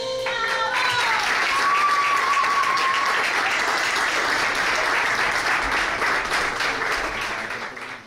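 Audience applauding and cheering as the belly-dance music ends, the last notes dying away in the first second. About a second and a half in, one long high cheer rises above the clapping; the applause fades near the end and cuts off.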